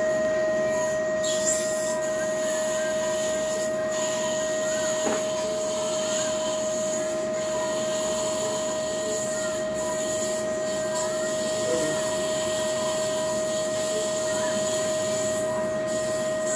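Steady electronic tone of a Coblation controller held on while the wand ablates tissue, over a continuous hiss of surgical suction.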